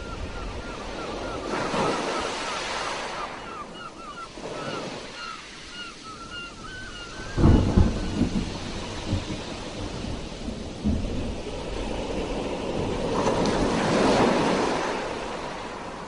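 Sea waves surging and washing ashore, swelling and falling back. A short chirping call repeats about three times a second through the first half. A burst of loud low thumps comes about halfway through.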